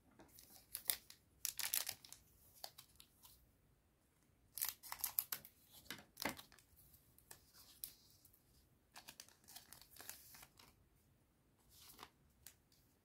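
A trading card booster pack wrapper being torn open and crinkled by hand, in a few short bursts of tearing and rustling.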